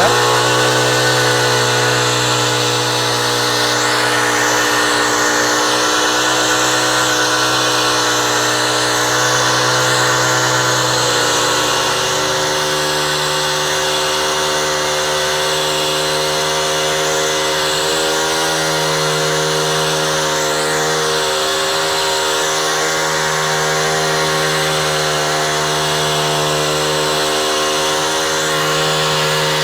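Power screed's small Honda gas engine running steadily just after being pull-started. Its pitch steps up to a faster speed about twelve seconds in, then holds as the vibrating screed works the fresh concrete.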